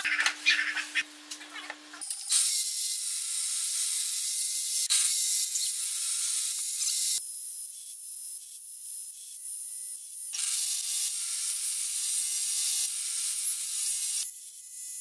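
Table saw cutting slots into a wooden post, heard as a thin steady hiss with a rattle, in stretches that change abruptly several times. A brief different sound with a steady hum comes first.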